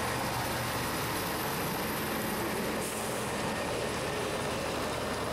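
Scania Streamline truck's diesel engine running at low speed as the articulated lorry and trailer pull slowly past, a low steady engine drone under an even rushing noise.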